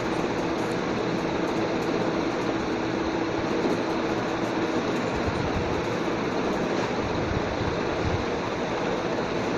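Steady hum and hiss of continuous machine-like background noise, with one faint held tone, unchanging throughout.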